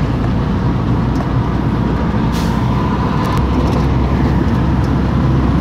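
Truck engine and tyre noise heard from inside the cab, a steady low rumble while cruising on the highway, with a brief hiss about two and a half seconds in.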